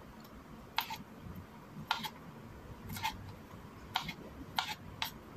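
Kitchen knife chopping young green beans on a cutting board: six sharp, crisp cuts about a second apart, coming quicker near the end.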